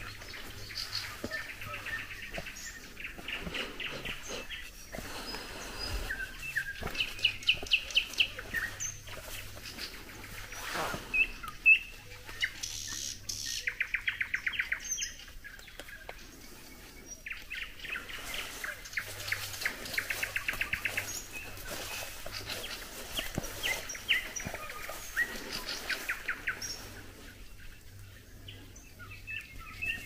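Songbirds singing, with repeated bouts of rapid trills a second or more long, shorter chirps in between, and several birds overlapping. One sharp click about halfway through.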